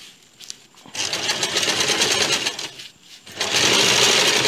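Compact electric domestic sewing machine stitching in two short runs, the first starting about a second in and the second just past three seconds, each cutting off abruptly. It is running a second line of stitching along a sleeve seam.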